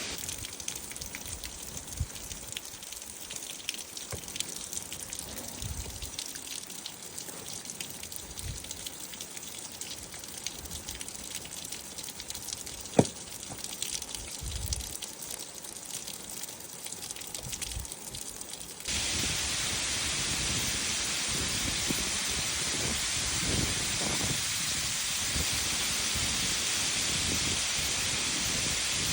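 Rain: scattered drops pattering at first, then a sudden change about two-thirds of the way through to louder, steadier, heavier rain. A single sharp tick stands out about halfway through.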